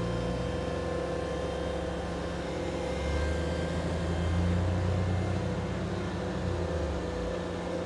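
Ventrac 4520 compact tractor's engine working under load as the tractor climbs out of soft pond muck, getting louder a few seconds in and easing off near the end.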